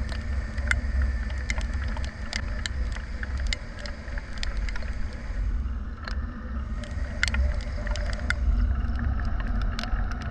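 Aprilia SR 150 scooter engine running steadily while riding, under heavy wind rumble on the camera microphone, with scattered sharp ticks throughout.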